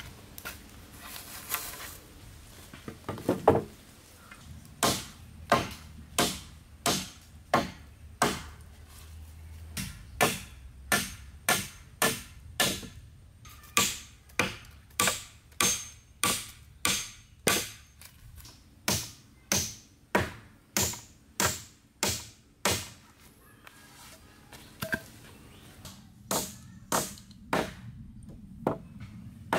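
A hand-held blade chopping, with sharp, evenly spaced strokes about one a second. The strokes pause briefly near the end, then start again.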